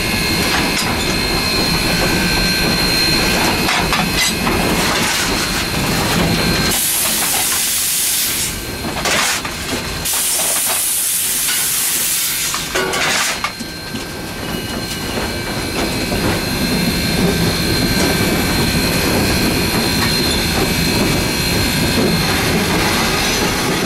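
Inside the cab of New Haven 3025, a Chinese-built 2-8-2 Mikado steam locomotive, under way: a steady rumble of running, broken twice by loud hissing, about seven seconds in and again from about ten to thirteen seconds in.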